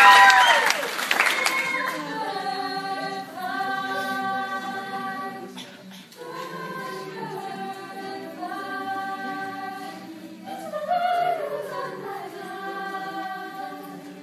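High school choir singing a cappella, holding sustained chords that change every second or two, with one voice moving over the chord about three-quarters of the way through. A loud whooping cheer rings out at the very start.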